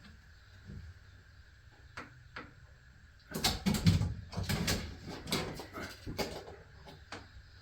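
A scattering of light knocks and rustles from handling the wood and tools: two single clicks, then a busy run of knocks in the middle, and one more near the end.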